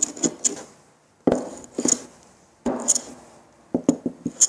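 Small metal hand plane cutting short strokes across a wooden workbench top, shaving hardened shellac filler flush with the wood. There are two longer strokes, each starting sharply and tailing off, with short knocks and clicks of the plane on the bench around them.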